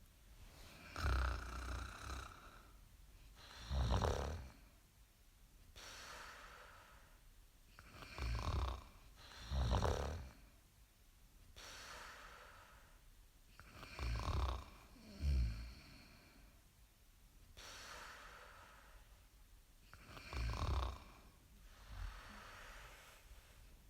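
Snoring: loud low snores about every five to six seconds, often two in quick succession, with softer breaths in between.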